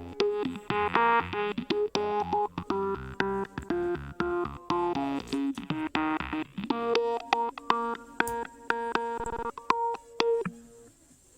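Background electronic music: a bouncy synthesizer melody of short notes over a bass line, stopping about ten seconds in.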